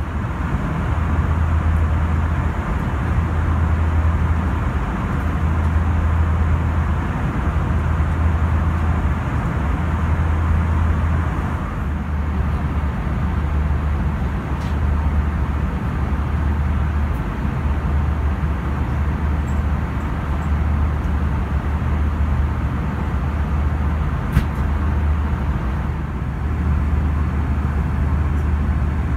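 Steady cabin noise of an Airbus A320 airliner in flight: a constant rush of airflow and engine drone, with a low rumble that swells and eases every couple of seconds. A single short click about three-quarters of the way through.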